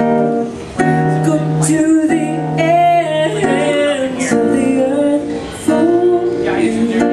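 A woman singing a song while accompanying herself on acoustic guitar, with held notes sung with vibrato over guitar chords.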